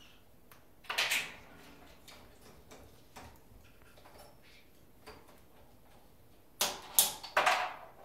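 Parrots moving about a wooden play stand, their beaks and feet scraping and clicking on the ladder and perches: one short scrape about a second in and a louder cluster near the end, with faint clicks between.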